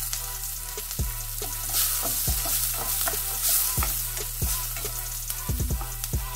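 Chopped onion and ginger sizzling in hot oil in a stainless steel pot, stirred with a spatula that knocks and scrapes against the pot about once a second, with a quick run of knocks near the end. The sizzle grows louder from about two seconds in.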